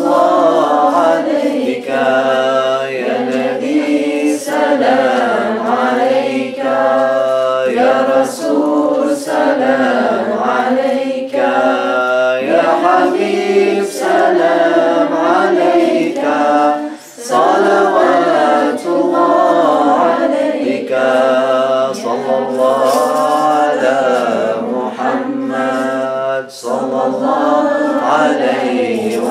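A small group of men's and women's voices singing an unaccompanied devotional dhikr chant, with long drawn-out sung lines and short breaks for breath.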